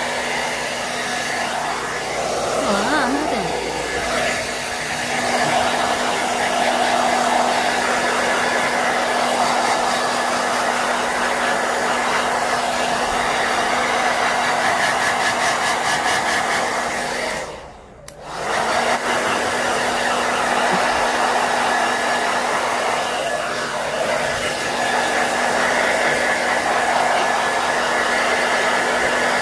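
Handheld hair dryer blowing steadily on a dog's coat, a constant rushing airflow with a steady motor hum. It cuts out for about a second roughly two-thirds of the way through, then runs on.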